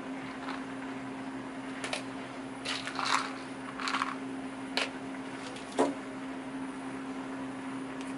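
Thin plastic bowls being handled and set down on a table: a handful of short light knocks and clicks, over a steady low hum.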